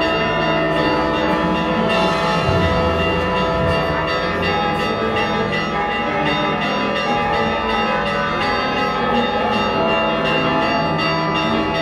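Church bells ringing continuously, several bells struck in quick succession so that their tones overlap.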